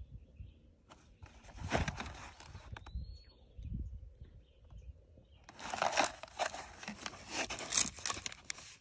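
Cardboard ammunition box rustling and scraping as it is handled and turned over in the hand, with a denser stretch of rustling from about five and a half seconds in.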